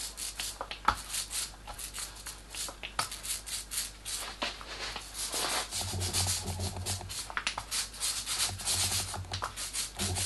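Small foam roller worked back and forth over a plywood board, spreading veneer glue in a quick series of short rubbing strokes. A low hum joins in about six seconds in.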